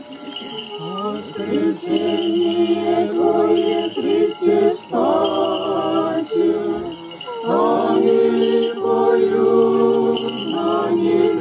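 A group of voices singing an Orthodox Paschal chant together in procession, in a steady run of phrases with short breaths between them.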